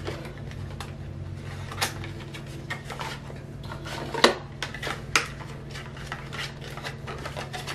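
Cardboard box and paper insert of a car diffuser kit being handled, with light rustling and a few sharp clicks and taps, the loudest about four seconds in.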